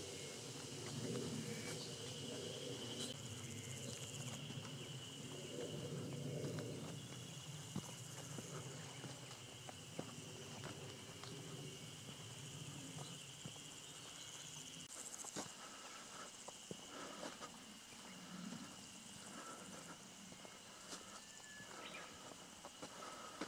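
Insects in summer grassland keeping up a steady high buzz. A faint low rumble underlies the first several seconds and fades out.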